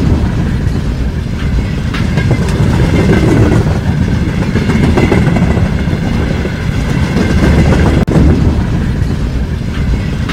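WDG4 diesel-electric locomotive hauling a passenger train past at track side, its engine running together with wheel noise on the rails. The sound drops out briefly about eight seconds in.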